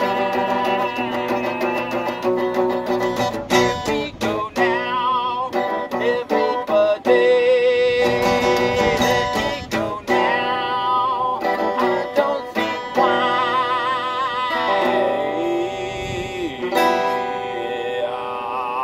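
A man strumming an acoustic guitar, with his wavering, wordless singing coming in a few seconds in; heard inside a car.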